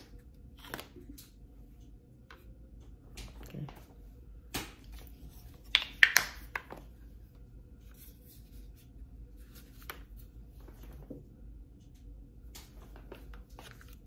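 Scattered plastic clicks and knocks from the folding arms of a DJI Osmo Mobile smartphone gimbal being handled and adjusted, with a short cluster of louder clicks about six seconds in.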